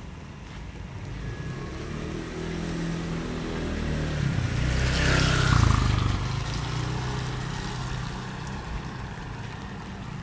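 A motor vehicle drives past on a wet road. Engine hum and tyre hiss build to their loudest a little over halfway through, drop in pitch as it goes by, then fade.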